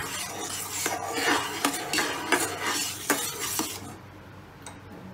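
Long metal spatula stirring a thick almond and sugar-syrup mixture in a nonstick pot, scraping around the pan with several sharp knocks against its side. The stirring stops about four seconds in.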